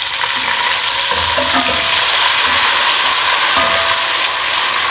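Water added to browned onions in hot oil, sizzling in a steady hiss while a wooden spatula stirs and knocks softly in the pot. The water is loosening the browned onions so they give up their colour.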